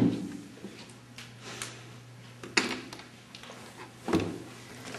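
Two sharp knocks about a second and a half apart, over a steady low hum of room noise.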